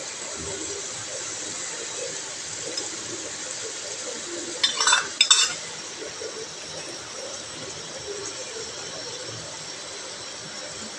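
A pot of beef karahi curry sizzling steadily on the heat as yogurt is added. About five seconds in, a quick run of ringing metal clinks sounds as a steel bowl knocks against the aluminium pot and the spoon in it.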